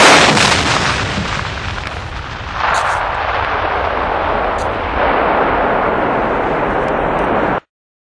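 A 20-foot container holding 8,661 kg net explosive content of hazard-class 1.3G waterfall fireworks goes off in one huge explosion. A loud rushing noise follows and swells again about two and a half seconds and five seconds in, then cuts off suddenly near the end.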